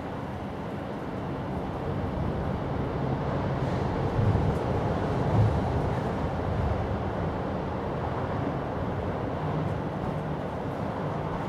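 Steady low rumbling background noise with no clear tone, swelling briefly about four and again about five and a half seconds in.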